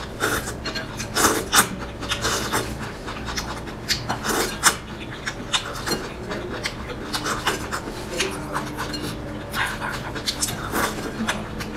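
Close-up eating sounds: irregular slurps, sucks and lip smacks while eating from a bowl of spicy broth with chopsticks, with breaths blown over the food to cool it.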